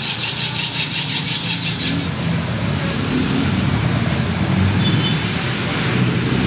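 Street traffic rumble. For the first two seconds a fast rhythmic rasping, about eight strokes a second, runs over it and then stops abruptly.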